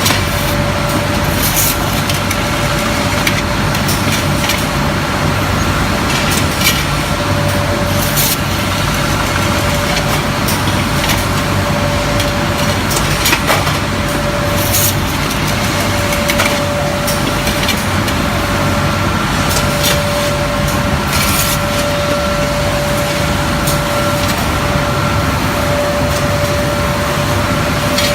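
Glass toughening furnace line for tempered glass lids running: a loud, steady machine drone with a constant whine and a low hum, and scattered short clicks.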